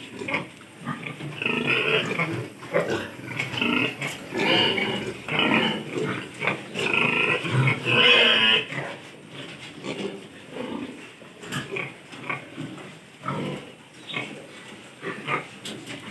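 A pen of piglets calling: many short overlapping calls, thick and loud through the first half, thinning out after about nine seconds.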